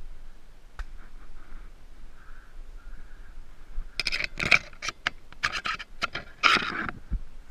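A run of scraping and clattering, about four seconds in and lasting some three seconds, made of quick sharp strokes.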